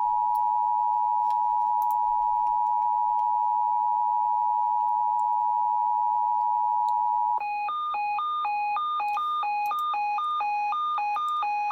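Emergency alert tones of a weather-radio warning broadcast: a single steady high beep-like tone, like the NOAA Weather Radio warning alarm tone, for about seven seconds, then a two-tone warble that switches between a lower and a higher pitch about every quarter second. The tones signal an incoming severe weather alert.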